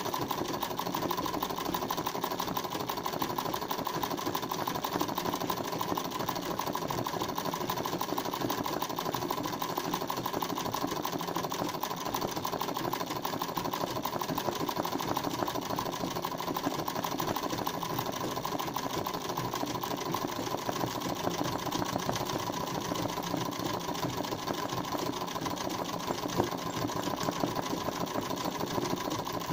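Domestic sewing machine running steadily and continuously, stitching free-motion embroidery fill (çin iğne) with no pauses.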